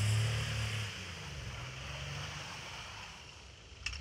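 SUV engine revving as the vehicle spins circles in snow. The engine note eases off about a second in and picks up again near the end, where there is one sharp click.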